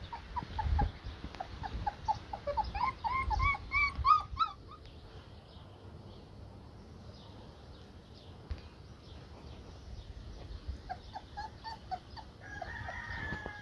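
Puppies whimpering and yipping: a quick run of short, rising whines over the first four seconds or so, then a few fainter whines near the end.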